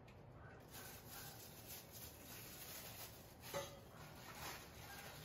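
Faint rustling of packaging as parts of a chrome stool are handled and unwrapped, with one small knock about three and a half seconds in.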